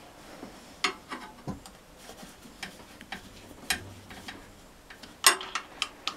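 Screwdriver levering the plungers of a diesel engine's fuel injection pump to prime it with fuel, giving a series of irregular sharp metallic clicks, the loudest about five seconds in.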